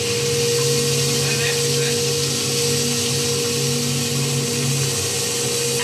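Stationary woodworking belt sander running steadily: a constant hum with a broad hiss over it.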